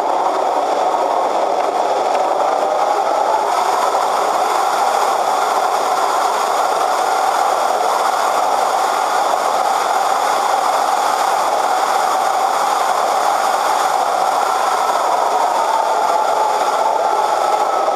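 Electric motor and propeller of an Easyglider Pro RC plane, heard from the camera on board, running steadily with air rushing past; the whine's pitch drifts slowly up and down.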